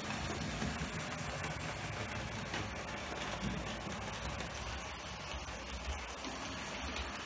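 OO-gauge model train running on its track: a steady whirr and rumble from the locomotive's small electric motor and the wheels of the loco and coaches rolling on the rails.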